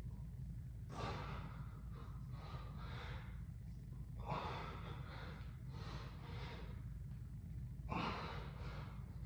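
A man breathing hard while lifting weights: several forceful exhalations, the strongest about four seconds in and near the end, over a steady low hum.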